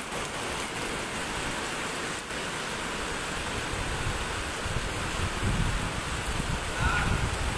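Typhoon rain and wind: a steady hiss, with gusts of wind buffeting the microphone in uneven low rumbles from about halfway through.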